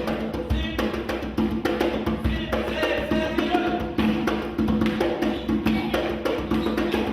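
Afro-Brazilian percussion group playing drums, a quick, steady rhythm of sharp strokes.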